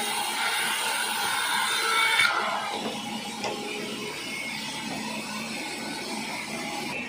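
Sawmill saw cutting acacia wood, a whining cut with a high hiss that drops away suddenly about two seconds in, leaving the machine running on with a lower, steady noise.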